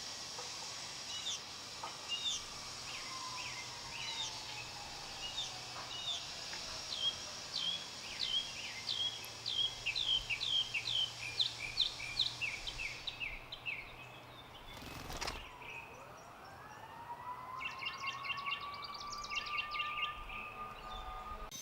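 A songbird giving a long run of short downslurred chirps that speeds up over about twelve seconds, then a faster trill near the end. Under it, the faint hum of a distant engine falls in pitch, then another rises.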